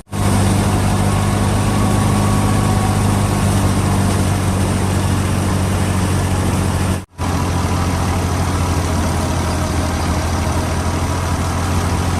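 Fiat 480 tractor's diesel engine running steadily while driving a wheat thresher, with the thresher's machinery noise mixed in. The sound drops out for an instant a little past halfway.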